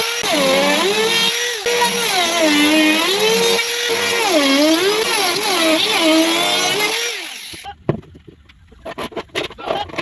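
Electric power tool motor running under varying load, its pitch dipping and recovering again and again as it bogs and frees up. It winds down about seven seconds in, followed by a string of short knocks and taps.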